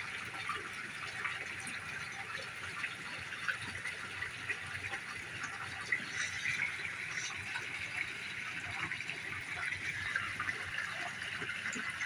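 Steady rush of a waterfall pouring into a koi pond, with scattered small splashes and drips.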